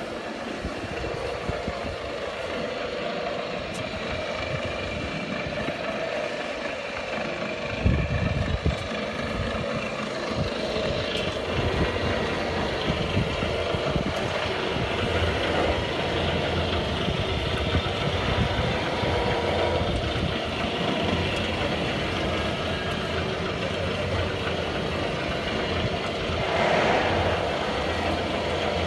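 A 2 m³, 380-watt electric feed mixer running, its vertical auger churning chopped straw in the tub: a steady machine hum with straw rustling. A sharp knock comes about eight seconds in, after which a deeper rumble joins.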